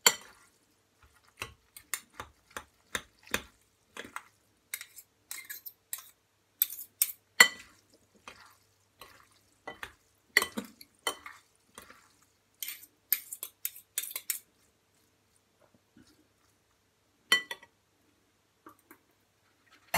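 Metal utensil stirring a thick pasta, corn, tuna and mayonnaise mix in a glass bowl: irregular clinks and scrapes against the glass, thinning out to a lone clink in the last few seconds.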